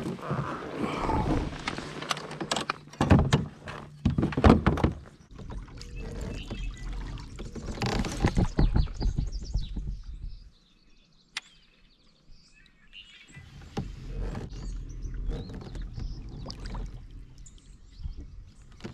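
Irregular knocks and clatter on a fishing kayak, with water splashing and sloshing against the hull. Partway through it goes nearly quiet for a few seconds, apart from one sharp click.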